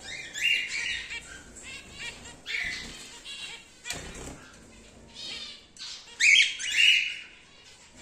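Cockatiels calling: two loud, harsh squawking calls, one about half a second in and another about six seconds in, with softer chirps between them.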